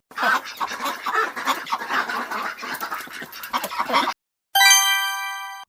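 Ducks quacking over and over for about four seconds, the calls dense and overlapping. Near the end a bright chime rings once and fades.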